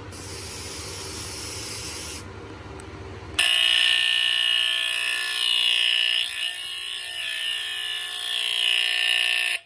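A hiss of aerosol smoke-test spray, then, about three and a half seconds in, the Edwards 217 smoke alarm's piezo horn goes off with a loud, high-pitched steady tone: the sensor has detected the test spray.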